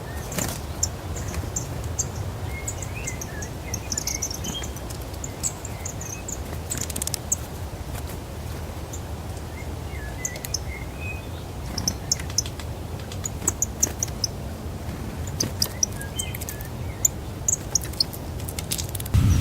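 Small birds at a winter feeder giving short, high chirps and twitters scattered throughout, with occasional sharp clicks, over a steady low background rumble.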